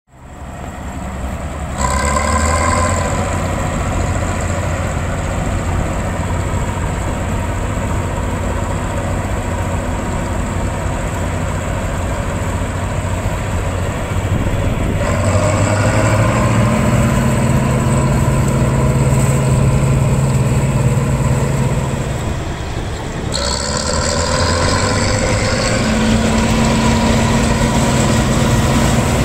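Bizon Z056 combine harvester's SW-400 diesel engine running steadily. It fades in over the first second or two and changes character abruptly about 2, 15 and 23 seconds in.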